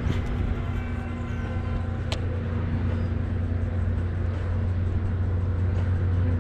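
Steady low hum of a running engine, with two sharp clicks, one just at the start and one about two seconds in.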